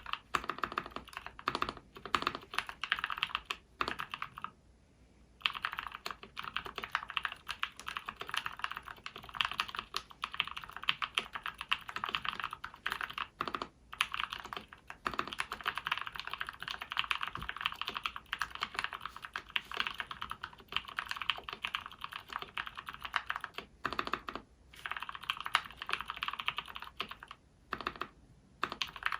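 Mechanical keyboard with SP-Star purple switches in an acrylic 60% case, typed on quickly and continuously, a dense patter of key clicks with short pauses about four and a half seconds in and twice near the end.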